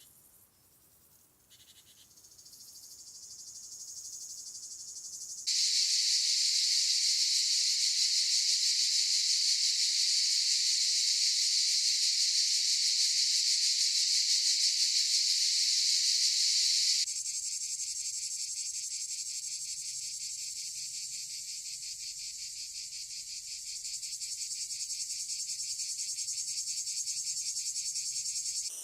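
Chorus of cicadas buzzing in summer heat. After a faint fade-in, a loud, steady dense buzz starts about five seconds in and cuts off suddenly about halfway through, replaced by a quieter chorus with a fast, even pulsing.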